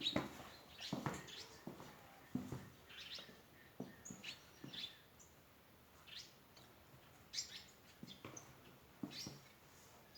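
Small wild birds chirping in short, scattered calls, several at once, with a few short soft thumps among them.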